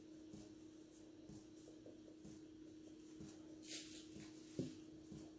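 Faint soft taps, about two a second, of a stainless-steel mesh sieve being shaken and knocked while flour is sifted through it into a glass bowl, over a steady low hum.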